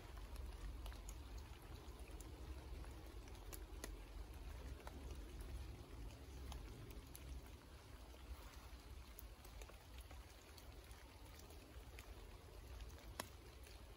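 Faint patter of light rain and dripping water among trees, with a low rumble of wind on the microphone and a few sharp ticks.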